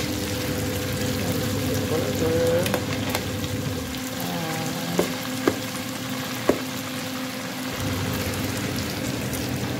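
Food deep-frying in a pan of hot oil, a steady sizzle, with three sharp clinks of a metal skimmer against the pan near the middle.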